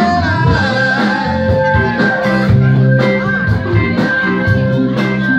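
Live blues-rock band playing, with singing and electric guitar over a steady bass and drum beat.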